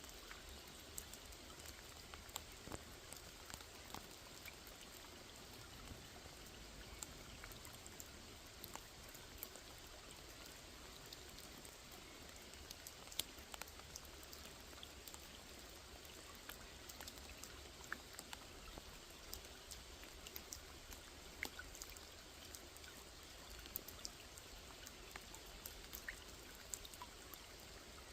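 Steady rain falling on a small lake: a soft, even hiss with many single drops ticking out sharply here and there.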